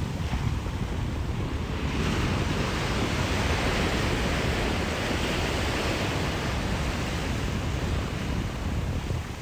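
Ocean surf: a wave breaks and washes up the shore about two seconds in, its hiss carrying on for several seconds before easing off near the end, over a steady low rumble of wind on the microphone.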